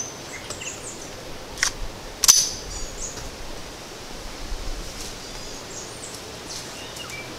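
Two sharp metallic clicks about two-thirds of a second apart, the second louder with a brief ring, as the Browning Buck Mark .22 pistol is readied for firing. Faint bird calls follow.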